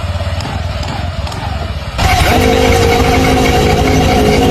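Scooter CVT transmission running with an abnormal noise from a worn part, at first the rattle of worn clutch shoes. About two seconds in the sound changes abruptly to a louder run with a steady whine.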